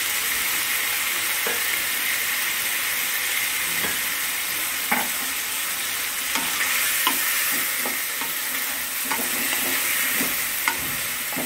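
Marinated chicken pieces sizzling steadily in hot oil in a kadai. From about halfway there are scattered sharp clicks and scrapes as a spatula stirs and turns the pieces.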